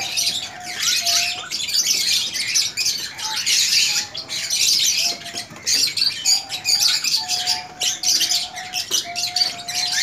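Many small cage birds chirping and chattering continuously, a dense aviary din, with short, level, whistle-like notes at a lower pitch scattered through it.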